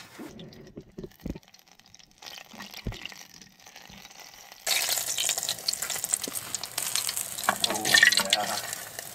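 Bannock frying in a pot of hot oil on a wood stove, sizzling and crackling loudly. The sizzle starts suddenly about halfway through as the dough is lowered into the oil, after a few light knocks of a spoon against the pot. The oil is running hotter than the usual medium heat.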